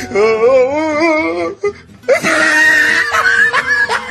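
Two cats in a standoff yowling at each other. A long wavering yowl is followed, after a brief pause, by a harsher, noisier yowl. Background music plays throughout.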